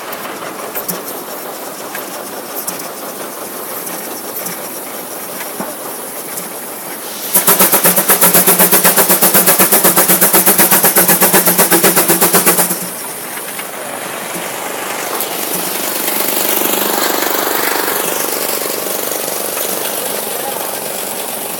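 Steam traction engine running a belt-driven sawmill. About seven seconds in, a much louder, rapidly pulsing noise breaks in for about five seconds and then stops; afterwards the steady machine noise swells and eases off.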